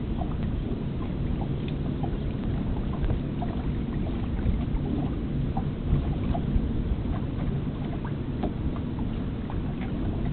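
Small sailboat under way: a steady low rush of wind and water moving along the hull, with scattered light ticks over it.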